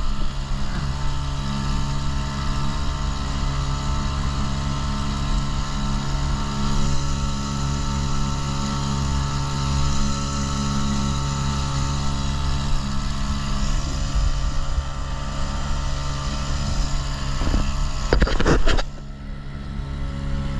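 Small boat's outboard motor running at a steady speed under way, with wind and water noise. About eighteen seconds in there is a brief loud rustling burst, after which the sound goes a little duller and quieter.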